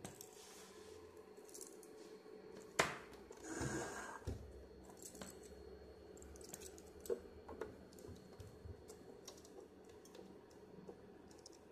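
Faint steady hum with a sharp click about three seconds in, a short rustle right after, and a few lighter clicks and taps later: handling noise from a hand-held camera.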